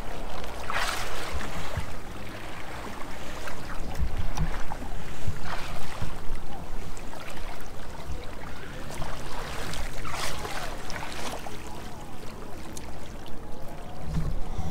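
Water splashing and lapping against a fishing kayak, with three louder splashes about one, five and ten seconds in and a couple of dull knocks on the hull.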